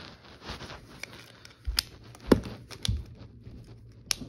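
A few soft thumps and sharp clicks: a toy walkie-talkie being handled close to the microphone, and bare feet walking on a wooden floor.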